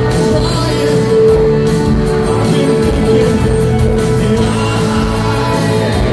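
Live rock band playing, with drums, electric bass and a male lead vocal sung into a microphone.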